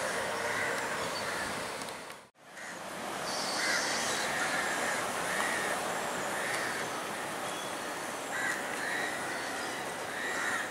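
Crows cawing repeatedly over steady background noise, with the sound cutting out for a moment about two seconds in.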